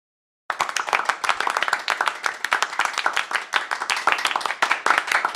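Applause: dense, irregular hand clapping that starts abruptly about half a second in.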